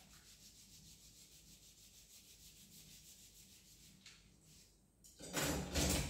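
Fast, even scraping strokes by hand at a kitchen sink, then a louder rough rush of noise starting about five seconds in.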